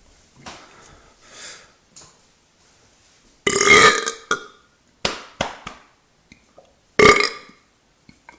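A person burping loudly twice after drinking carbonated ginger beer: a long, pitched belch about three and a half seconds in, then a shorter one about seven seconds in.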